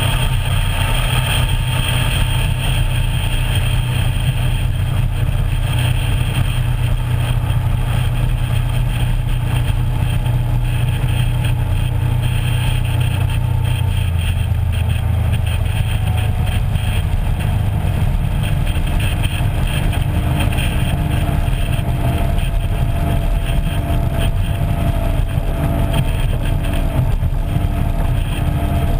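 Small motorboat's engine running steadily underway, mixed with the rush of water along the hull. Its note eases slowly lower over the second half.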